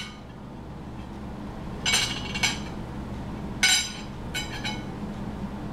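Dishes and cutlery clinking several times in short ringing knocks, two close together about two seconds in and more near four seconds, over a low steady hum.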